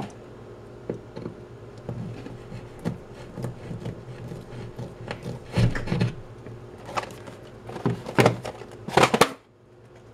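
Irregular knocks, taps and scrapes of hands and a tool working against a wall, heaviest in the second half, over a steady low hum that cuts out near the end.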